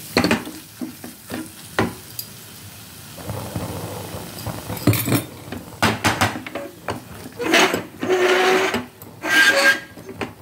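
Wooden spatula stirring and scraping thick onion-masala paste around a stainless steel kadai, the paste sizzling faintly as it fries in oil. The strokes come irregularly and grow louder and longer in the last few seconds.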